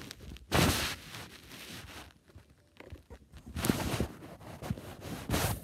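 Handling noise as cloth rubs and brushes against the phone's microphone: a steady rustle with louder scuffs about half a second in, near four seconds and just before the end.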